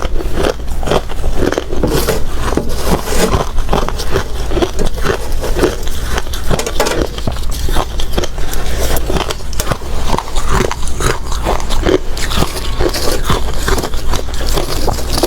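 Hard crushed ice being bitten and chewed close to the microphone: a continuous run of loud, sharp crunches, several a second.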